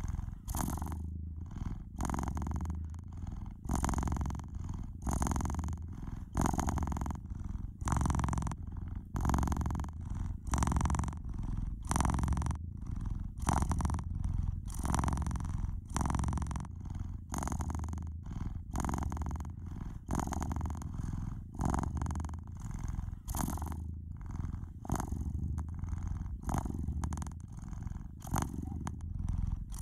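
Domestic cat purring steadily in even pulses, about three every two seconds.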